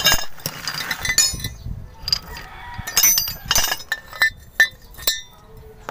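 Metal hand tools clinking and knocking against the truck's underside and oil drain fittings: a series of separate sharp clinks, some with a brief ring, spread unevenly over several seconds.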